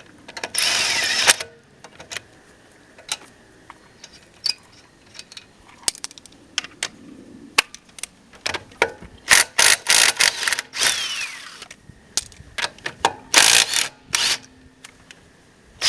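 Hand tools clicking and clattering against metal, with several loud, harsh rasping bursts lasting about a second each.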